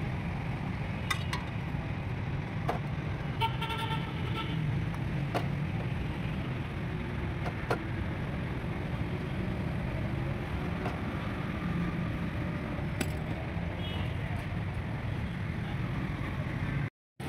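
Street traffic noise, a steady rumble of passing vehicles, with a short vehicle horn toot about three and a half seconds in and a few light clicks.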